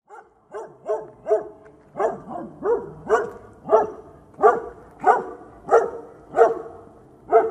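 A dog barking, about a dozen short barks in a steady run.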